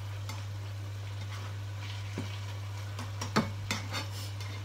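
Minced pork and holy basil sizzling in a non-stick frying pan as a spatula stirs and scrapes it, with several knocks of the spatula against the pan in the second half, the loudest about three and a half seconds in. A steady low hum runs underneath.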